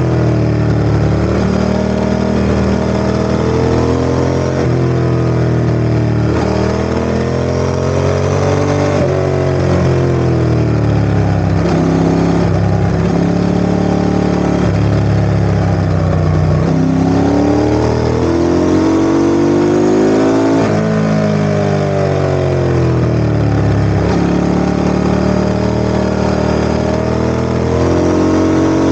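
Ducati ST4S's V-twin engine running under load, its pitch climbing and falling again and again, with several sudden drops in pitch.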